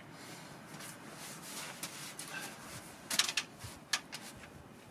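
A few light clicks and knocks from handling the rifle and its ammunition box, the loudest cluster a little after three seconds in, over a quiet background. No shot is fired.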